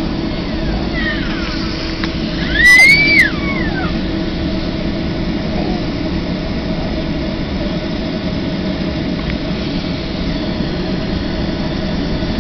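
Steady low hum and air hiss inside a parked airliner's cabin. About three seconds in, a brief loud high voice cries out with its pitch sliding up and down.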